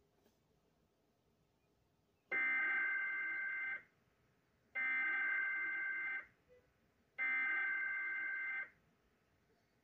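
Emergency Alert System SAME header over NOAA Weather Radio: three identical bursts of buzzing, warbling data tones, each about a second and a half long and about a second apart. They encode and announce the next weather alert.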